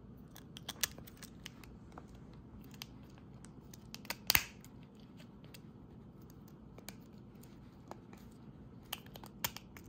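Small plastic clicks and taps from a Honda key fob's hard plastic shell as its two halves are handled and pressed together, with one sharper, louder snap about four seconds in.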